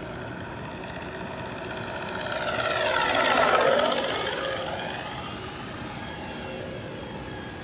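Radio-controlled Flightline Corsair F4U-1A warbird passing by: its electric motor and propeller, with the onboard sound system's simulated engine sound, swell to a peak about three and a half seconds in and drop in pitch as it goes past, then settle back to a steady drone.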